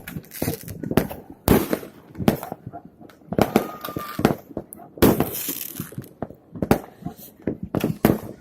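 Fireworks going off: a string of sharp bangs and crackles at irregular intervals, the loudest about one and a half and five seconds in.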